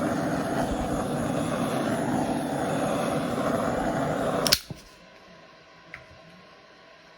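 Handheld torch running with a steady roar, then shut off with a sharp click about four and a half seconds in.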